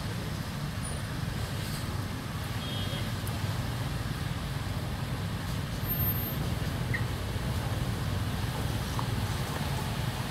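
Steady low outdoor rumble with no distinct events, the kind of constant background drone of distant road traffic.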